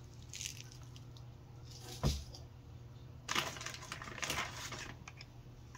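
Hands unpacking a cardboard box: a short rustle, a single sharp knock about two seconds in, then a clear plastic zip bag crinkling for a second or so, over a low steady hum.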